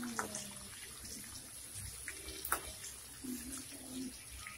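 Half-boiled chicken pieces deep-frying in oil in a steel kadai, a steady sizzle, with one sharp click about two and a half seconds in.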